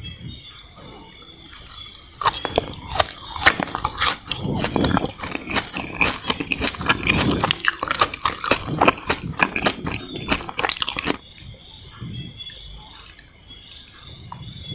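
Close-miked biting and chewing of sugar-coated jelly candy, the sugar coating crunching in a dense run of small crackles. It starts about two seconds in and dies down near eleven seconds.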